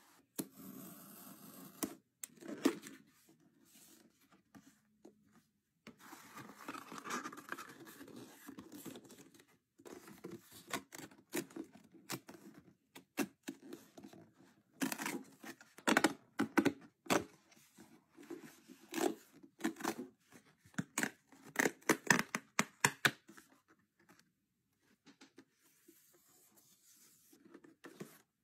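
Cardboard box being opened by hand: tearing, scraping and tapping of cardboard in irregular spurts, with quiet pauses a few seconds in and near the end.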